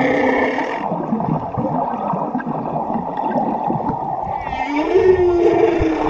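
Whale calling underwater: a moan with overtones that breaks off about a second in, then a stretch of steady rushing water noise, then a second moan that rises and holds level near the end.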